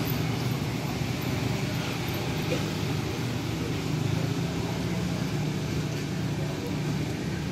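City street traffic: motor scooters and cars passing on a wet road, a steady hum of engines under the hiss of tyres.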